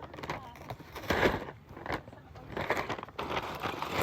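Plastic Lego parts bag crinkling and small Lego pieces clicking and rattling against each other as the bag is opened and emptied, in irregular bursts.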